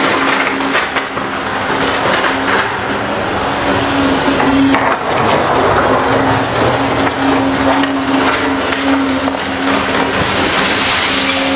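Large hydraulic excavator working: a steady, loud engine and hydraulic drone with a held hum, overlaid by irregular crunching and scraping of loose material.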